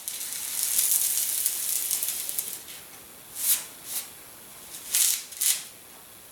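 Coarsely ground pepper grains sliding and rattling across paper as the piles are pushed around: a steady gritty hiss for about two and a half seconds, then four short swishes.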